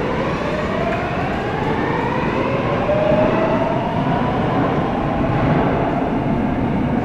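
Traction motors of an 8000-series first-batch Line 8 metro train, driven by a GEC Alsthom GTO-VVVF inverter, whining as the train accelerates away from the platform. Several tones climb steadily in pitch over the rumble of the cars on the rails.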